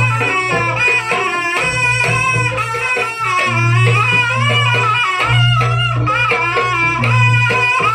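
Jaranan accompaniment music: drums and percussion under a high, wavering melody, with a deep low tone that swells and drops in long blocks.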